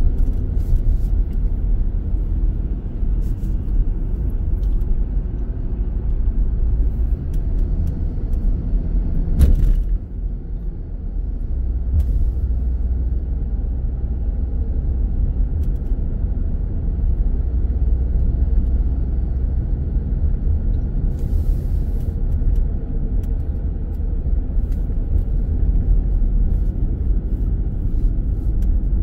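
Steady low road and engine rumble inside a moving car. A sharp knock about nine and a half seconds in is the loudest moment, and there is a brief hiss a little past twenty seconds in.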